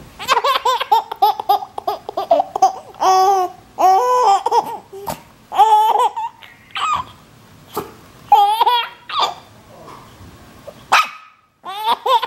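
Baby laughing hard in repeated bursts of high-pitched giggles and squeals, with short pauses between, going quiet briefly near the end.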